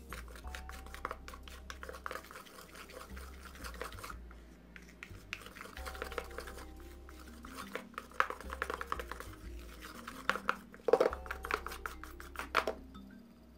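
A plastic stirring stick scraping and clicking against the side of a bowl as it folds shaving foam, in irregular strokes, with a few sharper taps in the second half.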